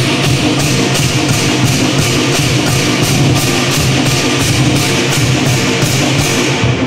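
Lion dance percussion band playing: a big drum with cymbals and gongs, the cymbals clashing on a fast, steady beat several times a second.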